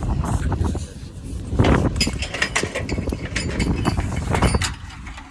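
A run of metallic clinks and knocks from crane rigging and sheet-metal equipment being handled, over a steady low rumble. The clinks cluster from about a second and a half in until near the end.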